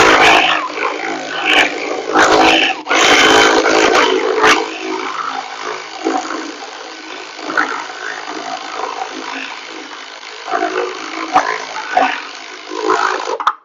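Slow-speed power ratchet running as it drives a quick release bolt snug. It is loudest in two spells in the first few seconds, then runs lower, and cuts off suddenly near the end.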